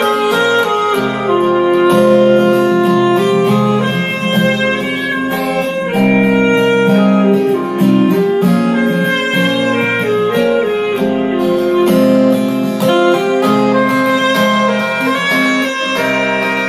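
Instrumental music played loudly through a Bose L1 tower PA speaker, a melody of held notes over a steady accompaniment.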